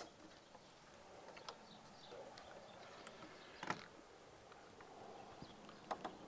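Quiet outdoor background with a few faint clicks and knocks from handling a bow being drawn on a draw-weight rig. The loudest click comes about three and a half seconds in, and two more follow near the end.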